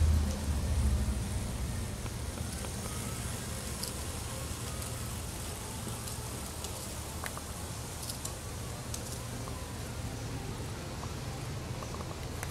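G-scale model diesel locomotives running over an elevated wooden trestle: a low rumble of motors and wheels that is loudest in the first second as the train passes close, then settles to a steady hum as it moves away along the loop.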